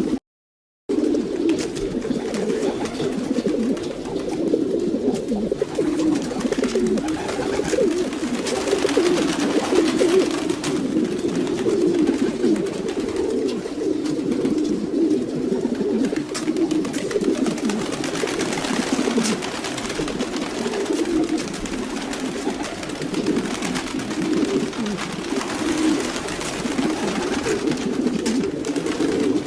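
A flock of domestic pigeons cooing continuously, many low, wavering coos overlapping, with a brief half-second dropout to silence right at the start.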